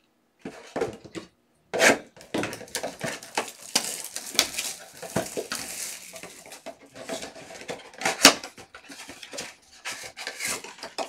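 Clear plastic shrink wrap crinkling and tearing as it is stripped off a Donruss mega box of trading cards, then the box's cardboard flap being opened, with sharp louder crackles about two seconds in and just after eight seconds.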